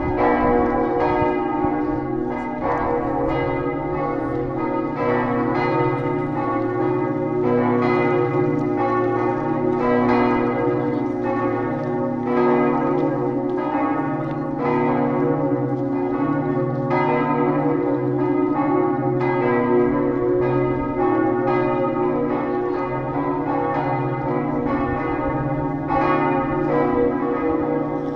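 Several church bells at Lourdes ringing together in a continuous peal to call the faithful to mass. Their strikes overlap without pause over a low, lasting hum.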